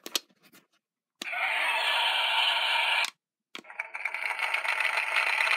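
Hasbro Sid the Science Kid talking microphone toy in demo mode: a few button clicks, then two tinny, noisy sound effects from its small speaker, each about two seconds long. The second has a fast pulsing flutter.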